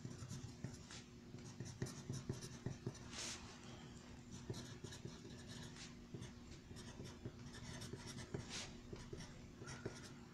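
Pencil writing on paper: faint, irregular scratching strokes and light taps as figures are written out, a few strokes louder than the rest. A low steady hum runs underneath.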